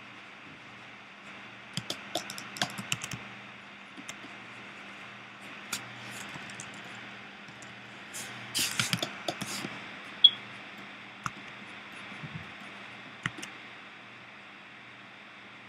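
Computer keyboard keys clicking in two short runs, about two seconds in and again around eight to nine seconds in, with single clicks between; the sharpest, loudest click comes about ten seconds in. A steady low hum runs underneath.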